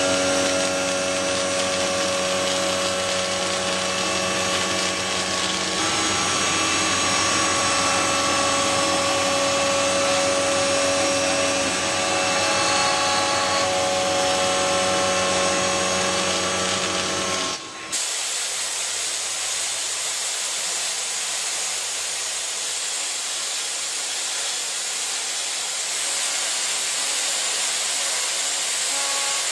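CNC milling machine cutting metal: a steady whine of several held tones over cutting noise. About two-thirds of the way through it cuts abruptly to an even, high hiss of machining.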